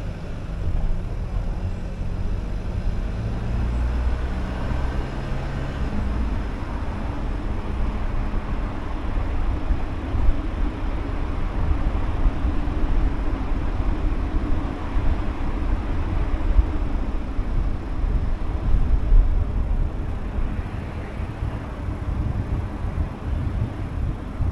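A car driving on city streets: a steady low rumble of engine and tyres on the road, with a low engine drone that fades out after about six seconds.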